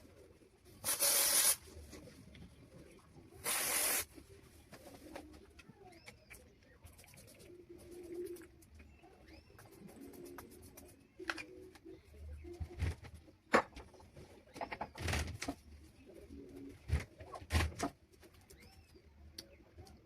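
Two short hissing sprays from a body-spray bottle, about a second and three and a half seconds in, then scattered clicks and knocks. Doves cooing and small birds chirping faintly in the background.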